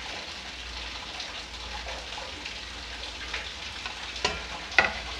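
Chopped onion pattering into a steel mixing bowl as a hand scrapes it off a plate, with two sharper clicks near the end.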